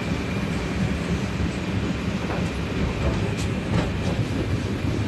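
Passenger train coach running along the track, heard from inside the vestibule by an open door: a steady rumble of wheels on rail with a few faint clicks.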